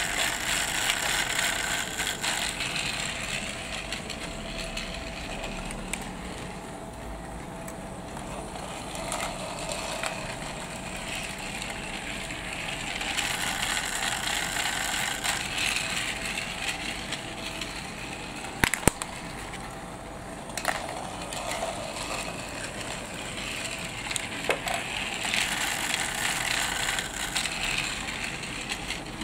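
Battery-powered Trackmaster toy engine running on plastic track, its small motor whirring and its wheels rattling over the track joints, growing louder and softer as it laps the loop. A single sharp plastic click sounds a little past halfway.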